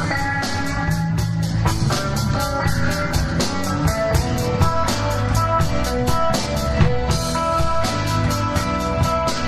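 Live rock band playing: drum kit keeping a steady beat under electric guitar and bass.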